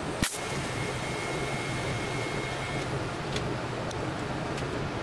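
Steady low electrical hum of a TIG welding setup between welds, with a thin high tone for the first few seconds and one sharp click about a quarter second in.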